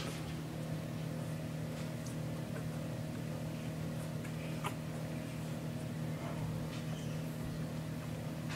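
Steady low hum with a faint, short squeak from a newborn puppy about halfway through.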